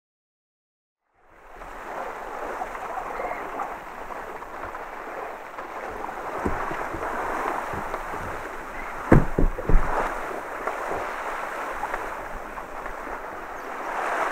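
Sea waves washing and wind rushing, heard aboard a small sailing boat under way in choppy water, after about a second of silence. A few loud thumps come about nine to ten seconds in.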